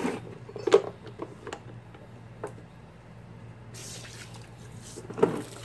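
Knocks and clicks of a garden hose being fitted to a pressure washer's water inlet, with short hisses of water, one about four seconds in and another near the end. A faint steady low hum underneath.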